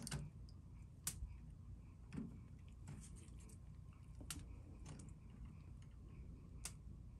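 Faint handling noises: a handful of light clicks and taps a second or more apart, as small metal clip hardware is handled while the dipped lure is hung up, over a steady low background hum.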